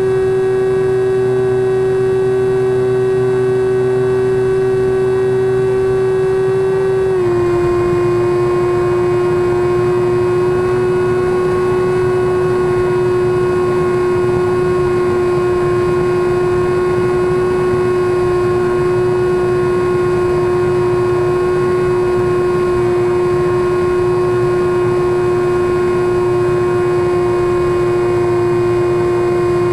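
Brushless electric motor (Turnigy Aerodrive SK3 outrunner) turning a three-blade 9x6 propeller on a SkyWalker model plane in flight, heard from the onboard camera as a loud steady whine with air rushing over it. The pitch steps down slightly about seven seconds in as the motor slows a little, then holds steady.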